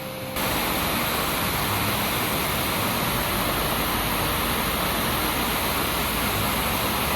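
Water from a waterfall rushing steadily, starting abruptly about a third of a second in.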